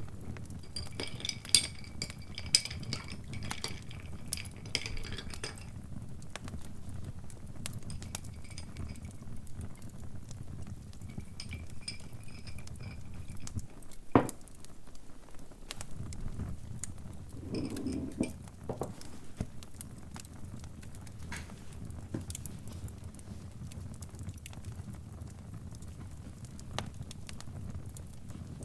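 Crackling fire: a low steady rumble scattered with pops and crackles, with one sharp crack about halfway through. For the first few seconds, and briefly twice more, light ringing clinks sound over it.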